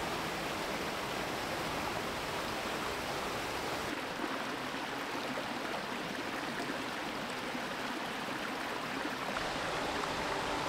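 Mountain creek rushing and splashing over rocks and small cascades, a steady rush of water. About four seconds in the rush turns lighter, with less of its deep rumble.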